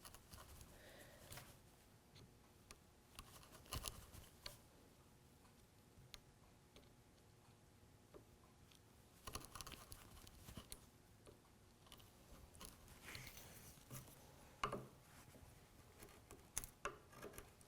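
Faint, scattered scrapes and ticks of a chisel paring waste out of a hinge leaf mortise in wood, in small clusters with quiet stretches between.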